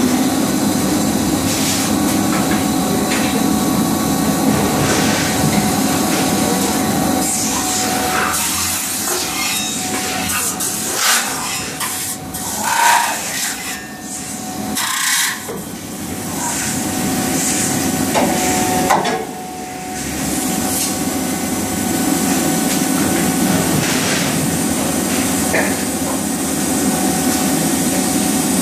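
Leifeld metal spinning machine running with a steady hum and a constant tone, its forming roller pressing and rubbing a sheet-metal blank against the spinning mandrel. In the middle stretch there are irregular scraping and knocking sounds as the part is formed and released.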